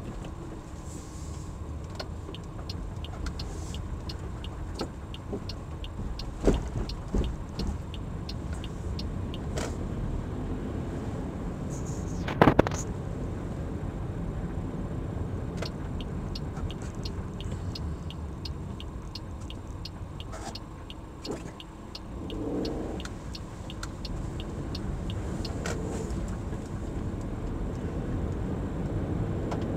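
Car driving slowly, heard from inside the cabin: a steady low rumble of engine and tyres on the road. Through much of it runs a string of light, evenly spaced ticks, about two a second, and about twelve seconds in there is a single sharp knock.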